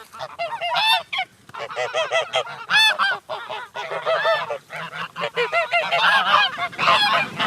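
Geese honking: many short, arched nasal calls in quick overlapping series, as from a flock.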